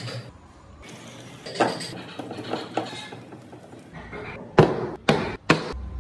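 Carved wooden model-car parts knocking and clattering as they are handled and set down on a table: a few light knocks, then three sharp, loud knocks about half a second apart near the end.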